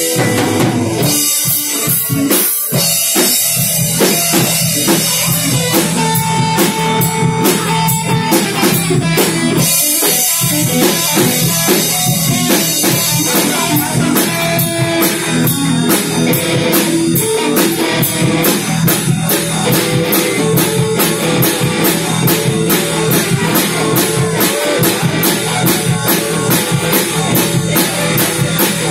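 Live rock band playing an instrumental passage: drum kit keeping a steady beat under amplified electric bass and electric guitar.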